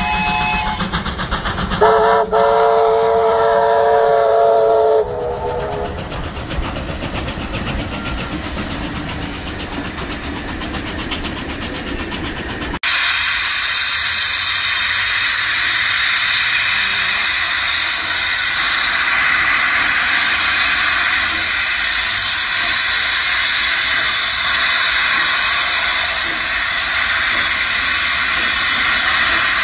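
A steam locomotive whistle blows for about three seconds over the rumble of a passing train. Then, after an abrupt cut, a loud steady hiss of steam comes from NSWGR C38-class Pacific 3801, moving slowly with steam venting from its cylinder drain cocks.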